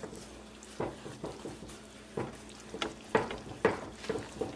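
Silicone whisk stirring flour into hot frying oil in a metal pan, with repeated swishing, scraping strokes, louder in the second half, over a faint sizzle of the flour toasting in the oil.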